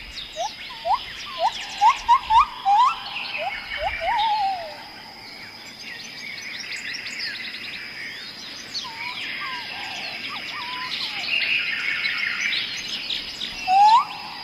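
Several small songbirds chirping and singing together in a dawn-chorus-like mix. A run of short, rising whistled notes repeats in the first few seconds and again near the end, over a steady faint high-pitched tone.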